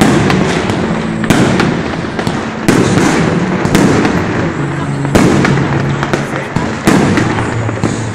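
Aerial fireworks going off in a rapid series: about six loud bangs, one every second or so, with continuous crackle between them.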